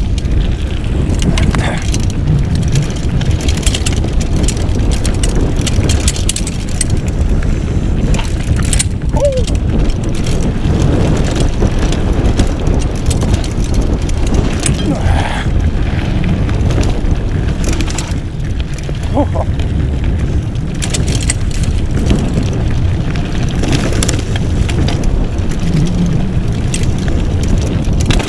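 Wind buffeting the microphone of a mountain bike's handlebar camera during a fast downhill run on a dirt singletrack, with the bike rattling and knocking over bumps throughout.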